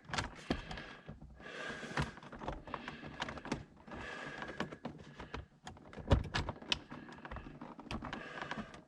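Hands working a new HVAC temperature control cable through the dashboard: irregular light clicks, taps and rustling as the cable and dash parts are handled, with a sharper knock about six seconds in.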